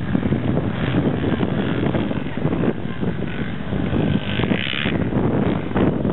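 Sport quad (ATV) engine running as the machine comes down a dirt slope and rides on along the track, heard through heavy wind buffeting on the microphone.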